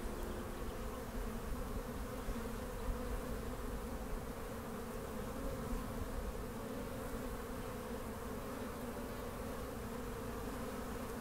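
Honeybees humming: a steady drone of many bees buzzing together, as from a colony.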